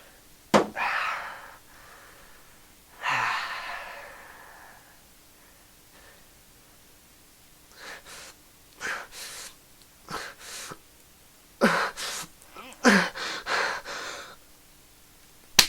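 A man's sharp gasps and breathy cries, in separate bursts with pauses between, as he reacts to the sting of freshly applied aftershave.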